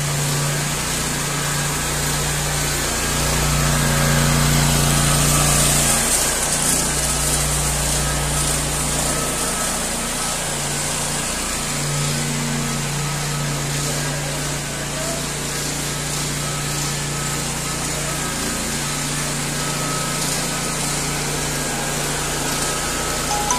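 Gener HK764 764 cc two-cylinder V-twin petrol engine running steadily on a ride-on power trowel, driving its rotating trowel blades. The low engine note wavers a few times as the machine is steered.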